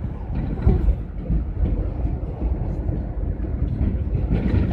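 Steady low rumble of engine and road noise inside the cab of a GAZ Gazelle van driving along a city street.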